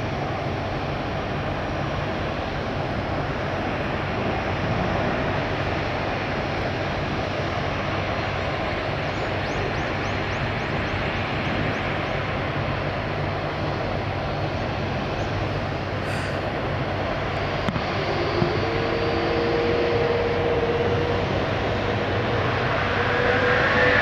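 Jet airliner engines running with a steady, dense noise. Over the last few seconds, engine tones rise in pitch as the sound grows louder, as when thrust is being built up.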